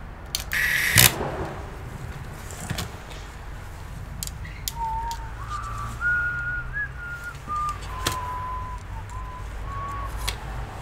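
Someone whistling a short tune for about six seconds, in clear held notes that step up and down. Light clicks and taps of parts being handled sound through it, and a short loud burst of hissing noise comes about a second in.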